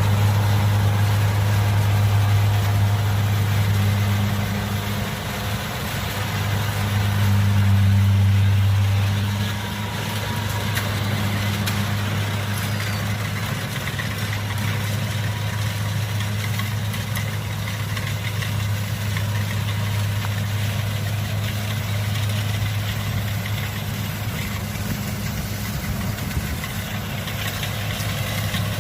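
Kubota DC70 combine harvester's diesel engine and threshing machinery running steadily under harvesting load, with a low, even hum. It swells louder twice in the first ten seconds, then settles.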